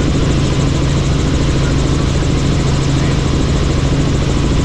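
Helicopter in flight: a loud, steady engine and rotor drone with a constant low hum and no change in pitch.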